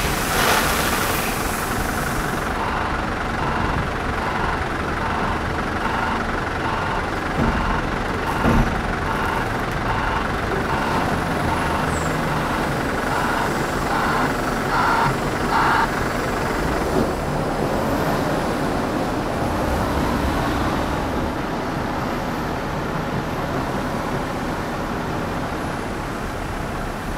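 Volvo L260 wheel loader's diesel engine running as it pulls away after dumping crushed stone into a truck trailer; the last of the stone slides off the bucket in the first couple of seconds. From about three seconds in to about sixteen, a steady repeated beeping, typical of the loader's reversing alarm.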